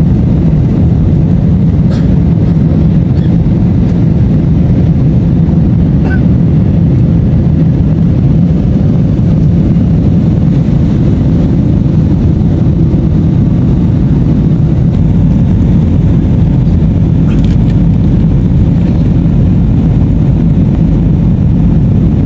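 Airliner cabin noise during the descent to land: a loud, steady low rumble of engines and airflow with a constant hum underneath and a few faint ticks.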